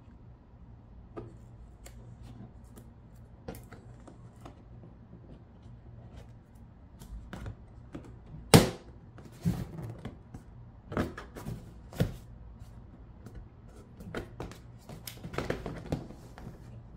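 Scattered clicks and knocks of hard plastic as the hitch fascia cover panel is worked by hand into the cut-out in the plastic rear bumper cover. The sharpest knock comes a little past halfway, and a quicker run of clicks follows.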